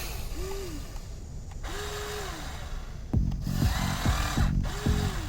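A small electric motor whines up, holds and winds down again several times, like an RC hydraulic excavator's pump as the controls are worked. From about three seconds in, a louder low, pulsing rumble joins it.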